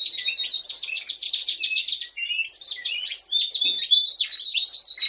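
Several Norwich canary cocks singing at once, a dense, unbroken chorus of fast trills and chirps. Singing like this marks the cocks as fit and ready to breed.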